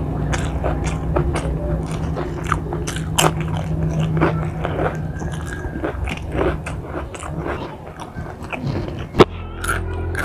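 Close-up crunching and chewing of crisp potato chips, a run of short sharp crackles with one louder snap about nine seconds in, over a steady low hum.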